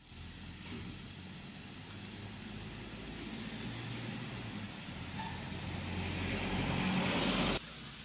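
Distant road traffic, a steady hum of passing cars that grows louder over the last couple of seconds and then cuts off abruptly.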